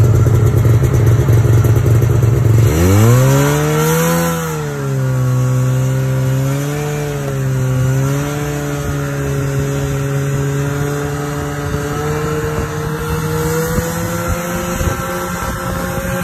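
Snowmobile engine under way. About three seconds in it revs up sharply, then runs at a fairly steady pitch that rises and dips a little as the throttle changes.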